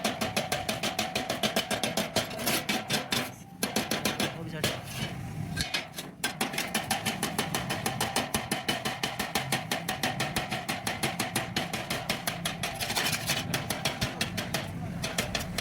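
Stick welding arc crackling steadily, a dense rapid sizzle, briefly breaking off twice, about three and a half and six seconds in.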